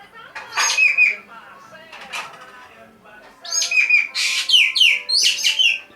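Green magpie (ekek geling) calling: a short burst of shrill chirps about half a second in, a single call near two seconds, then a rapid run of shrill calls, each falling in pitch, through the last two and a half seconds.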